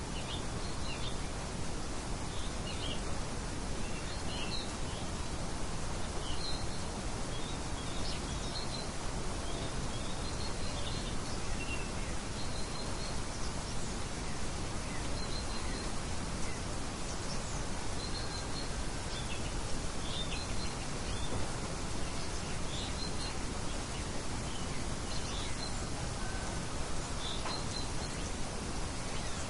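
Steady wind noise with small birds chirping now and then, short high chirps scattered throughout.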